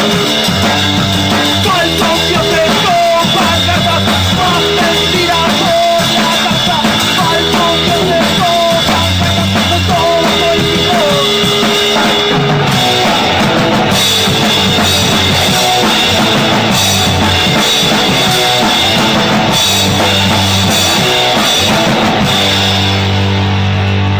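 Rock band playing an instrumental passage: driving drum kit with bass and guitars, loud and steady.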